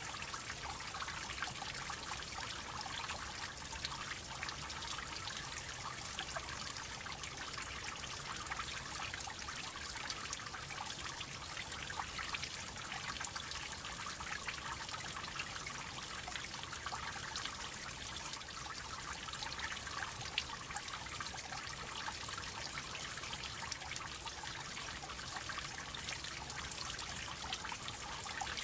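Water droplets falling and splashing in a steady, dense patter of many small drips over a continuous trickle.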